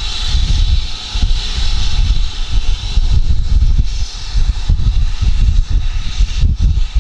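Steam train passing: a steady hiss of steam over a heavy, gusting rumble of wind buffeting the microphone.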